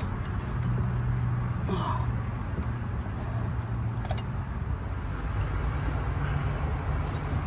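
Steady low background rumble with a single sharp click about four seconds in as hose-clamp pliers work a spring clamp on a coolant hose. A short chirp sounds about two seconds in.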